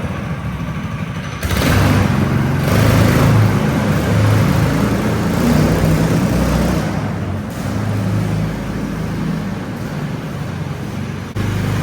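Small 5-horsepower engine of a homemade snowdog track sled running. It gets louder sharply about a second and a half in and eases off in the second half.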